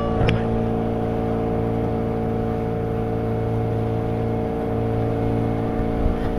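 Outrigger fishing boat's engine running steadily at cruising speed, with an even, unchanging drone and the hiss of water along the hull.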